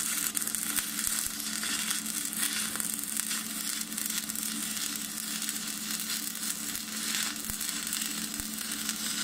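Stick-welding (MMA) arc crackling and sizzling steadily as a 2.0 mm rod electrode lays a butt weld on thin 1.7 mm square steel tube at about 70 amps.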